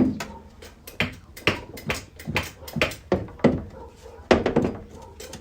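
Hammer blows on car sheet metal: a run of sharp knocks, roughly two a second and unevenly spaced, as a dented inner body structure is worked back out under hydraulic ram tension. A low steady hum runs underneath.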